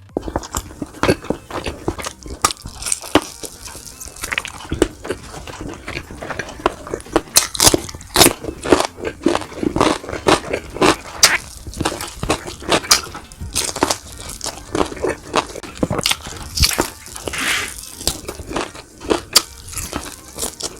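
Close-miked eating of fried boneless milkfish and garlic fried rice: steady chewing and crunching, with many short, sharp bites and clicks.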